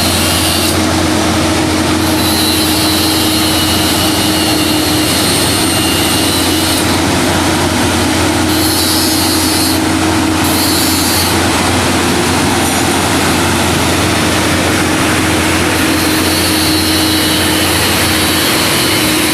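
Railway track-maintenance machine running steadily: a constant low engine hum under a dense, even hiss.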